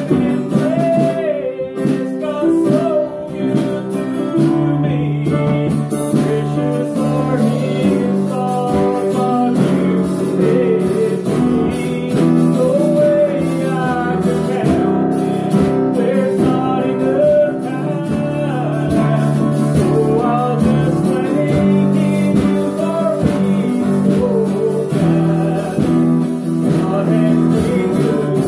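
Acoustic guitar strummed with a man singing a song over it.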